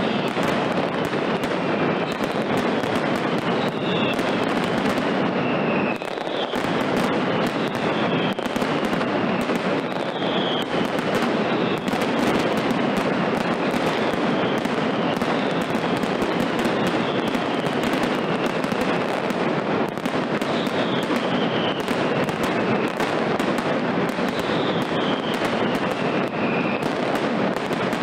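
Mascletà being fired: a dense, unbroken crackle of firecracker bangs, with short falling whistles recurring every second or two.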